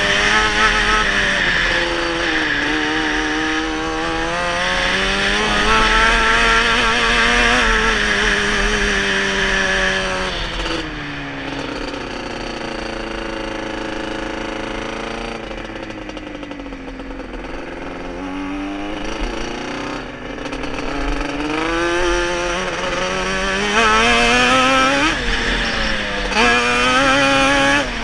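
Off-road vehicle engine under way on sand dunes, the revs rising and falling: running high at first, easing off through the middle with the pitch sagging and climbing back, then pulling hard again near the end. A steady low wind rumble sits on the microphone underneath.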